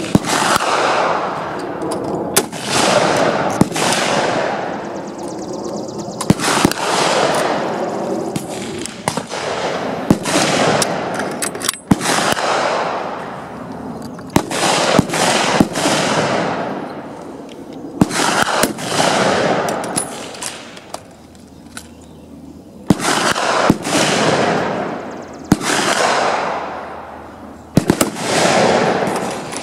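Rifle shots, many at irregular spacing and some in quick pairs, each followed by a long echo fading over about a second.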